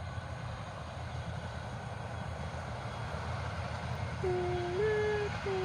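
A train running with a steady low rumble. About four seconds in, its horn sounds twice, each time a low note stepping up to a slightly higher one.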